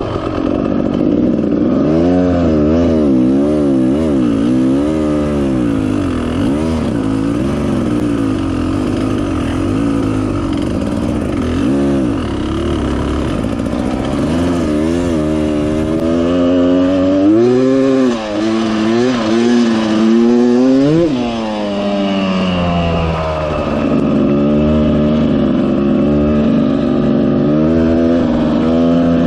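Dirt bike engine being ridden hard, its note rising and falling continuously with throttle and gear changes as it works through soft sand. About two-thirds of the way through, one sharp rev climbs high and drops away.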